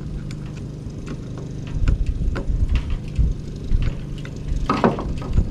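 Small clicks and taps of a screwdriver working inside a welding electrode holder, over a steady low engine hum, with one brief louder noise near the end.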